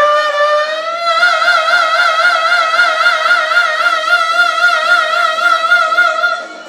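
A singer holds one long high note for about six seconds, sliding up into it and then wavering with a wide vibrato, over a karaoke backing track. The note cuts off just before the end.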